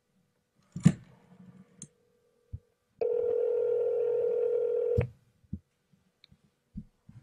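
Corded desk telephone: the handset is lifted with a sharp clack about a second in, then a steady telephone tone sounds from the line for about two seconds and cuts off with a click, followed by a few light clicks and knocks of the handset.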